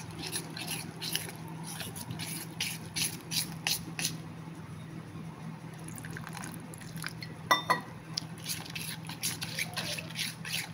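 A spoon stirring a wet flour-and-water batter in a stainless steel bowl: quick wet clicks and squishes, three or four a second, that pause briefly about four seconds in. About seven and a half seconds in, the spoon gives a ringing clink against the bowl. A low steady hum runs underneath.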